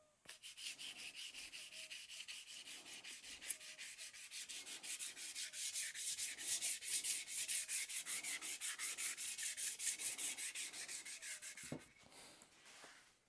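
A primer-puttied motorcycle rear mudguard being block-sanded by hand with 320-grit paper: quick, even back-and-forth rasping strokes, about three a second. They stop near the end with a light knock.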